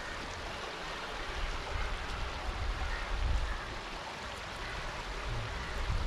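Steady rush of a flowing river.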